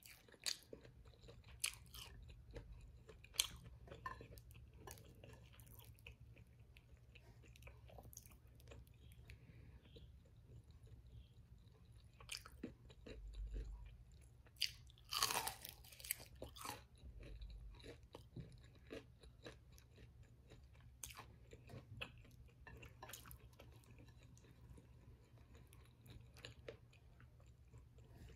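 Chewing and crunching of crisp battered fried food (tempura and egg-coated fried zucchini), with irregular crackly crunches and a few sharper bites now and then.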